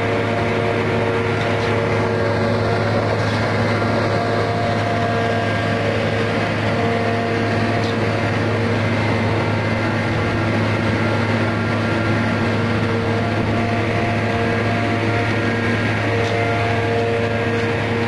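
Concrete mixer truck's diesel engine running steadily, turning the drum while concrete is discharged down the chute: a constant low hum with steady higher tones over it.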